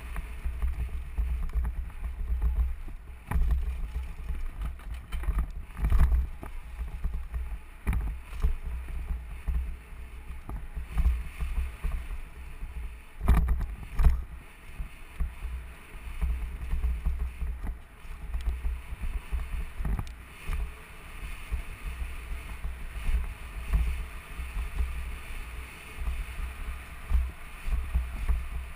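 Giant Glory downhill mountain bike ridden fast down a dirt trail: a steady, uneven rumble of wind buffeting and tyres on the dirt, with the bike clattering over bumps. It is heard through a helmet-mounted GoPro. Several sharp knocks come through as the bike hits bumps, two of them close together about halfway.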